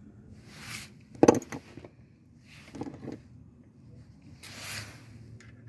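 A few knocks and clinks of hand tools against parts at the timing-chain end of a 2.4-litre four-cylinder engine, the loudest about a second in. Between them come soft, breathy rushes about every two seconds.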